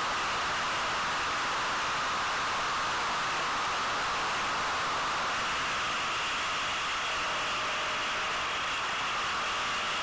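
Steady rushing noise from riding a Yamaha WR250 enduro motorcycle along a dirt road, with no distinct engine note standing out.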